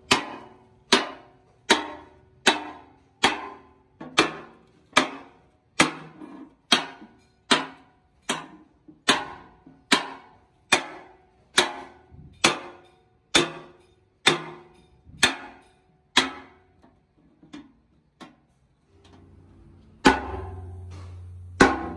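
Hand hammer striking the steel patch plate on an excavator boom in a steady rhythm, a little more than one blow a second, each blow ringing briefly off the steel. The blows stop about two-thirds of the way through, followed by a few light taps and two heavier blows near the end over a low steady hum.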